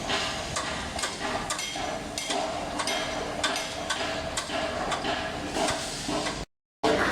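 Construction work noise: irregular knocks and clanks, some with a short metallic ring, over a steady background hiss, cut off briefly near the end.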